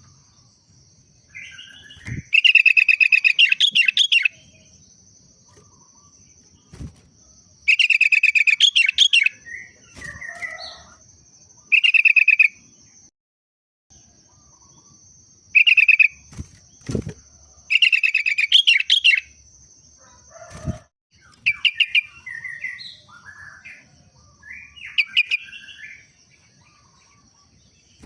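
Sooty-headed bulbul (kutilang) singing: loud, short phrases of rapid notes a few seconds apart, in a style its keeper likens to a yellow-vented bulbul (trucukan). There are a few dull thumps between phrases and a steady high buzz underneath.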